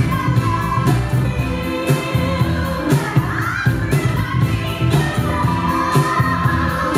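Dance music with a steady beat and a singing voice, played loud over the sound system for the waacking battle.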